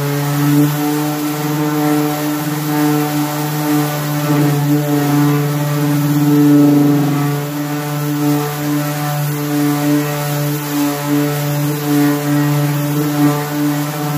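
Milwaukee random orbital sander running steadily with its round pad pressed on a bare wooden stool seat: a loud, even motor hum with a strong low note.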